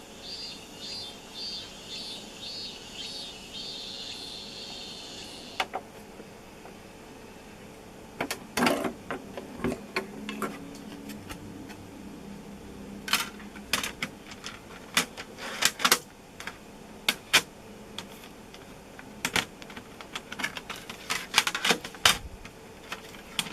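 Irregular plastic clicks and clacks of CD cases and discs being handled and the player's disc lid worked during a disc change. For the first four seconds or so a high chirp repeats about twice a second, then stops.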